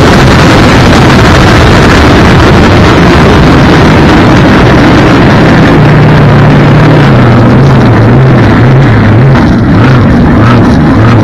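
Supercharged, alcohol-burning big-block Chevy drag boat engine and rushing wind and water, heard onboard and loud. The noise eases off after the first few seconds, and about halfway the engine drops to a lower, uneven, wavering note as the boat slows.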